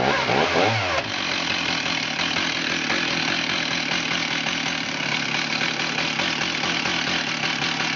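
Stihl 038 61cc two-stroke chainsaw engine revved up and down twice in the first second, then idling steadily.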